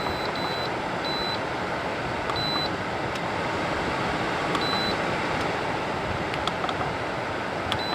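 Frigidaire FAD504DWD dehumidifier running with a steady fan rush, while its control panel gives about five short high beeps at uneven intervals as buttons are pressed: the buttons respond again now that their dirty contacts have been cleaned.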